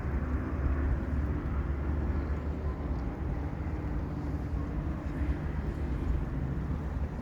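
A steady low engine rumble with a faint droning pitch, from motors running in the background.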